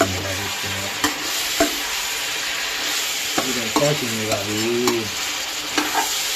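Pork pieces sizzling steadily in oil in a metal pot, stirred with a metal spatula that scrapes and clicks against the pot every second or so.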